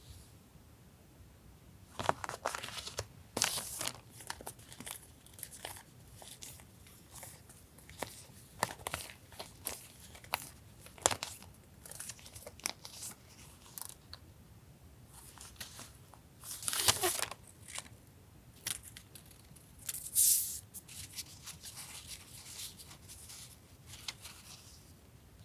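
Paper and sticker sheets being handled: a string of short rustles and crinkles, with a longer tearing sound about 17 seconds in and a sharp rustle about 20 seconds in.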